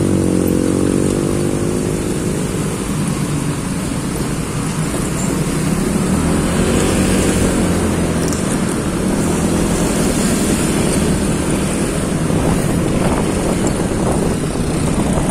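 Honda PCX 160 scooter's single-cylinder engine running while riding in slow traffic, its pitch rising near the start and drifting up and down with the throttle, over a steady rush of riding noise.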